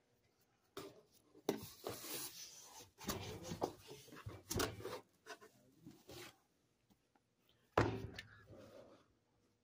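Comic books being handled: paper covers rustling and sliding against each other in a string of short handling sounds, with one sharp knock about eight seconds in.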